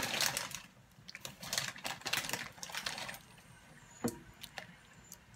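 A black plastic spoon stirring thick chili beans in a crock pot, scraping and clacking against the pot's insert. The scraping is loudest at the start and dies down about half a second in. Scattered scrapes and clicks follow, with one sharp click about four seconds in.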